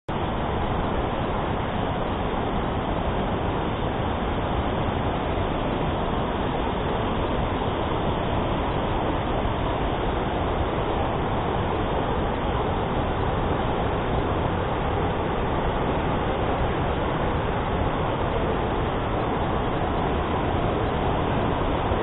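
A waterfall rushing, a loud, steady, even roar of falling water.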